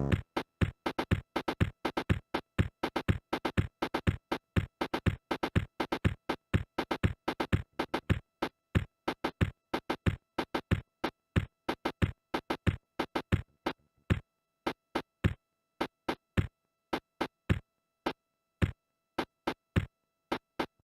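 A run of short, sharp electronic percussion hits, a chopped drum-machine pattern: about four a second at first, growing sparser and more irregular after about eight seconds, and stopping shortly before the end. A faint steady electronic tone sits underneath.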